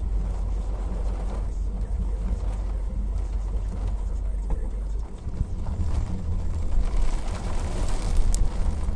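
Low rumble of a car driving through a thunderstorm, with the noise of wind and rain growing louder in the last couple of seconds.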